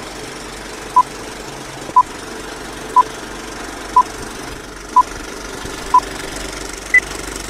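Film-leader countdown beeps from an intro sound effect: six short identical beeps one second apart, then a seventh beep an octave higher, over a steady noisy whirr.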